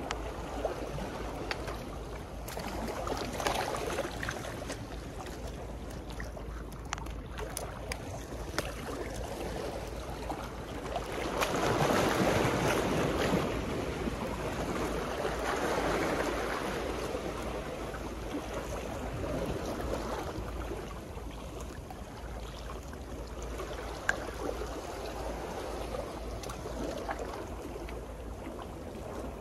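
Sea waves washing against a seawall, a steady wash that surges louder twice, about twelve and sixteen seconds in.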